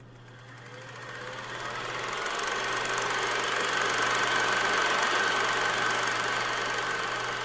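Steady mechanical running noise with a thin steady whine and a low hum, swelling up over the first few seconds and easing off near the end.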